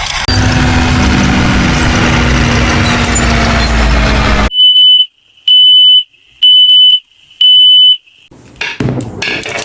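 A toy vehicle's electronic sound effects: a steady rumbling engine-like noise with a low hum cuts off suddenly, then four loud, high, even electronic beeps come about a second apart. Plastic clatter starts near the end.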